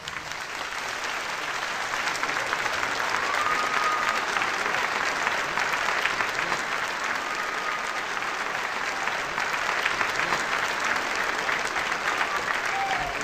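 A crowd applauding steadily, a dense even patter of many hands clapping.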